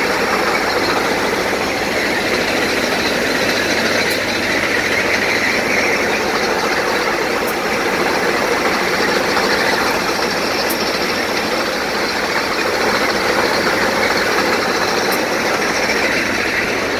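Diesel engine of a Plasser India track maintenance machine running at a steady idle: a loud, even mechanical drone.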